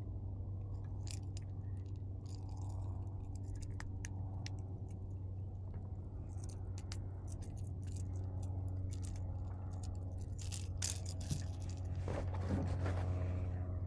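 Sharp little metallic clicks and rattles of a fishing lure and its hooks as a small fish is unhooked by hand, with a louder scraping rustle near the end, over a steady low hum.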